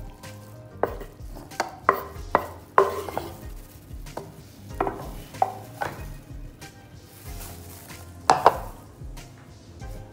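Irregular clinks and knocks of kitchen handling as raw chicken strips are moved by hand from a wooden cutting board into a ceramic plate, about ten sharp hits in all. The loudest is a close double knock toward the end.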